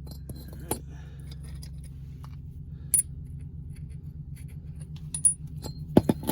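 Loose metal bolts and tools clinking as they are handled and set down: a few light clinks, a sharp one about three seconds in, and several more near the end, over a steady low hum.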